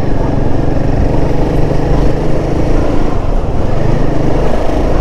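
Royal Enfield Himalayan 450's single-cylinder engine running steadily as the motorcycle is ridden.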